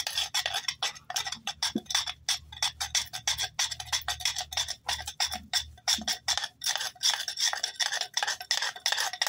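Fire roll being rolled hard under a wooden board on concrete: a fast, even rasping, several strokes a second, as the friction works to heat the roll to an ember.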